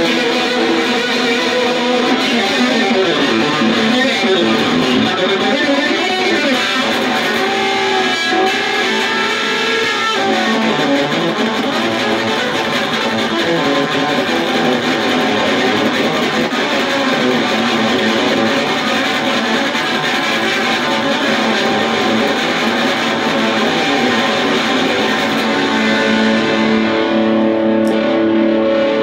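Electric guitar played solo through an amplifier: a continuous instrumental passage of picked and strummed notes and chords. Near the end it settles into a few sustained, ringing notes.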